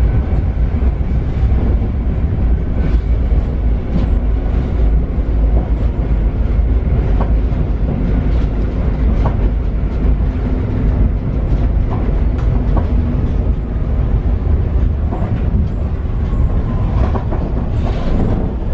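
Paris Metro Line 7bis train running along the track: a steady low rumble with scattered clicks of the wheels over rail joints. Near the end a falling squeal comes in as the train slows.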